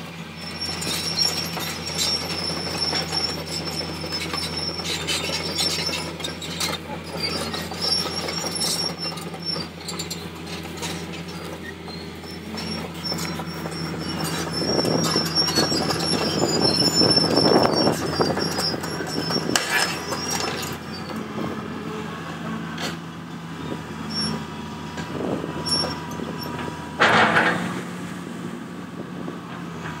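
Tracked excavator's diesel engine running steadily while the machine travels, its steel tracks giving off intermittent high squeals and clanks. Near the end comes a short, loud burst of noise.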